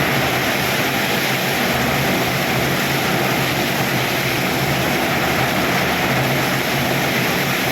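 Very heavy rain pouring down, a loud, steady hiss with no let-up.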